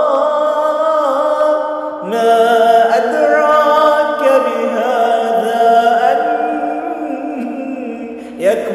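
A man's unaccompanied voice singing a drawn-out, wordless nasheed melody, with long held notes that slide between pitches, processed through a voice-changer app. A new phrase begins about two seconds in, and another starts near the end.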